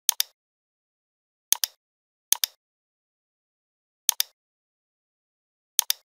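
Computer mouse button clicks, five of them at irregular intervals, each a sharp click-click of the button pressing and releasing.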